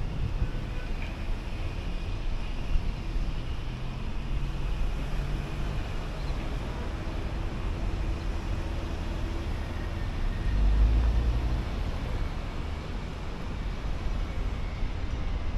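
Car driving along a highway: steady tyre and road noise with a low engine hum. The low rumble swells briefly about ten seconds in.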